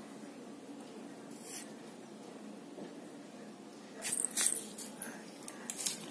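Steady low hum, then from about four seconds in a quick cluster of sharp, scratchy rustles and scrapes lasting about two seconds.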